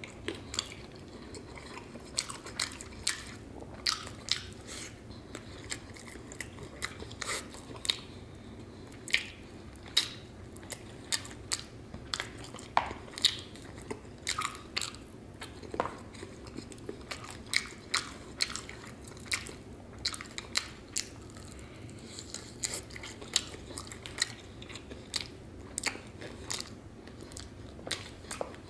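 Close-miked eating of sauced fried chicken wings: biting and chewing with many irregular sharp mouth clicks and smacks.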